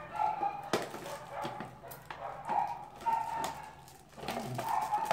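Crinkling and tearing of foil gift wrap as a present is unwrapped, with several brief high-pitched squeals in between.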